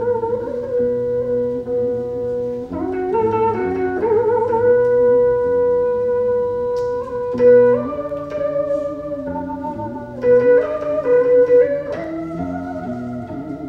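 Đàn bầu (Vietnamese monochord) and bass đàn bầu playing a slow melody in duet. The plucked harmonic notes are held long and bent and wavered in pitch by the flexible rod, while a lower part moves beneath. A few notes are struck harder, about halfway through and again near the end.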